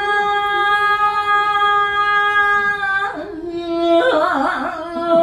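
A woman singing unaccompanied into a microphone, holding one long steady note on '이야' (iya) for about three seconds, then a lower, shorter phrase in a different tone. This is a demonstration of two ways to sing the high 'iya' note with the breath lifted.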